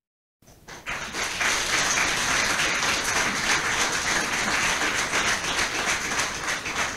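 An audience applauding steadily. The sound is cut out for the first half-second, and the applause comes in about a second in.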